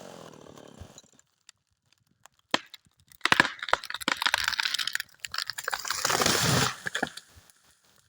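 A chainsaw fades away, then a large felled tree cracks and crashes down. Sharp cracks and snapping of wood and branches run together for about four seconds, starting about three seconds in.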